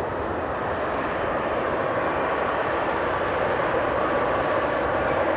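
Jet engines of a Boeing 777-300ER, its GE90 turbofans, running for takeoff with a steady rush of noise that grows slowly louder.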